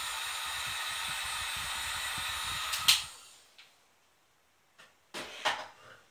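Heat gun running with a steady whirring hiss and a high fan whine as it shrinks heat-shrink tubing onto a cable. It is switched off with a sharp click about three seconds in and winds down. A few clicks and knocks of handling follow near the end.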